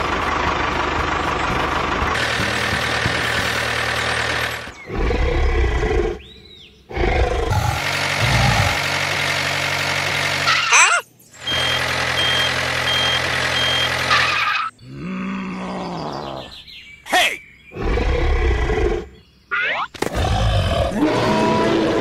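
A dubbed tractor engine sound effect running steadily, then a string of dinosaur roar and growl sound effects in short loud stretches with brief gaps between them.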